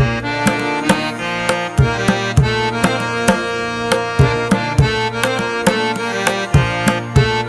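Background music: sustained melodic notes over a steady hand-drum rhythm in the style of Indian classical music, with about two drum strokes a second.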